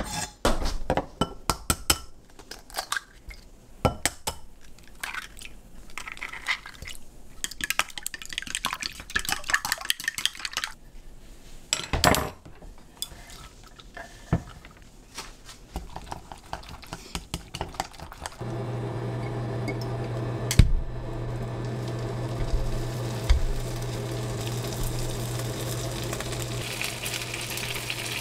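Kitchen utensils and dishes clinking and knocking during food preparation: many short clatters and taps. About two-thirds of the way in, a steady low hum starts and continues, with a single sharp knock shortly after.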